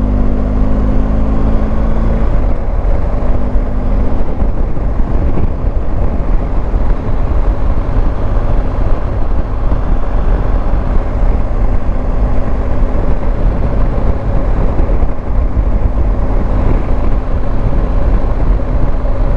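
BMW R1250GS boxer-twin engine running steadily under way, heavy with wind and road noise. The engine note changes briefly about two seconds in.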